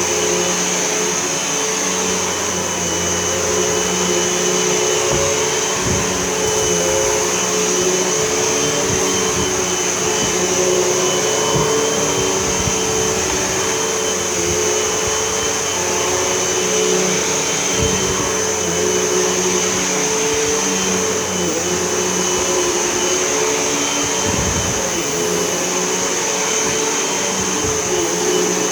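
Hoover Elite whole house vacuum running steadily with a high, even motor whine while it is pushed back and forth over carpet.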